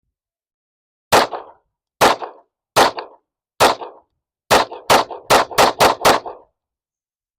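Walther WMP SD semi-automatic pistol in .22 Winchester Magnum fired unsuppressed: ten sharp shots, the first four spaced roughly a second apart, then six in fast succession, emptying a ten-round magazine.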